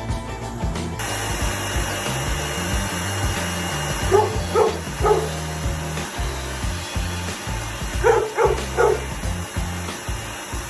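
Springador dog barking in two quick runs of three barks at the noise of a running motor, with a steady machine drone underneath. Background music with a steady beat plays throughout.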